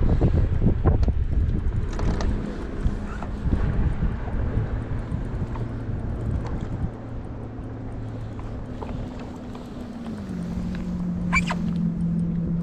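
Wind rumbling on the microphone aboard a fishing boat, under a steady motor hum that steps down in pitch about ten seconds in, with a few knocks near the start and a short rattle near the end.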